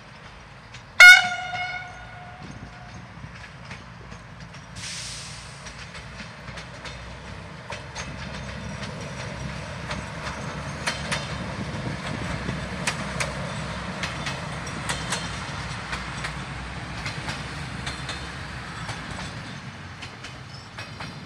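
Siemens Desiro diesel multiple unit sounding one short horn blast about a second in, then running past with its diesel engine rumbling and its wheels clicking and knocking over rail joints and points. A brief hiss comes about five seconds in.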